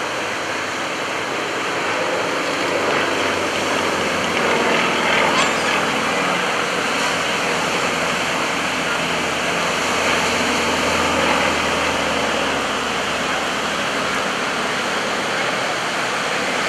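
Distant steady drone of two radial-engined aerobatic trainers, a Yakovlev Yak-52 and a Nanchang CJ-6, over a steady rushing noise, the low engine hum swelling a little in the middle.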